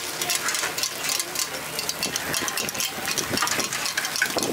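Takoyaki batter sizzling in a takoyaki pan, with crackling and the short scrapes and taps of metal picks as the balls are turned.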